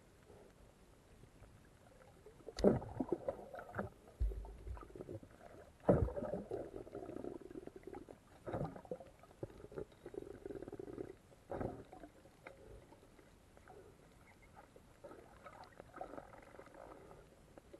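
Muffled underwater water noise heard by a submerged camera: irregular rushes and bubbling, with sharp knocks, the loudest about two and a half seconds and six seconds in, and a short low rumble between them.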